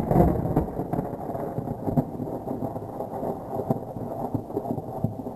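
Rolling thunder from a thunderstorm: a long, low, crackling rumble that slowly dies away.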